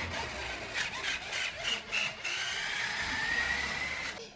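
Remote-control toy dump truck's small electric motor whining as it drives. The pitch dips and then climbs slowly over the last two seconds, with a run of clicks and knocks in the middle. The sound cuts off suddenly near the end.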